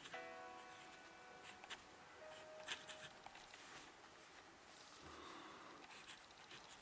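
Faint scratching of a Pilot 78G fountain pen's nib on notebook paper, in short strokes with pauses. A faint steady tone of several pitches sounds for about the first second and a half, and a shorter single tone follows a couple of seconds in.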